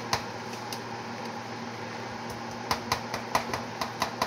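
A metal spoon clicking and tapping against a mayonnaise jar and a mixing bowl while scooping mayo. There are two clicks at the start, then a quick run of about eight taps in the last second and a half, over a steady low hum from a kitchen fan.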